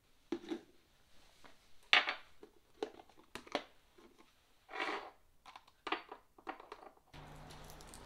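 A plastic food storage container and its snap-on lid handled on a tiled kitchen counter: a string of clicks, knocks and rustles as the lid comes off and the snacks inside are handled, with the sharpest knock about two seconds in.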